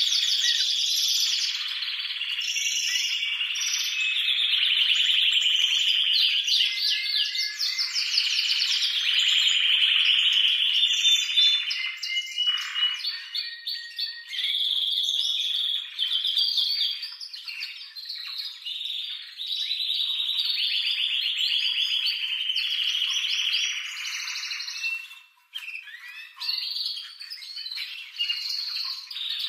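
Male domestic canary singing an excited breeding-season song: a long run of fast rolling trills and chirps, with a brief break near the end.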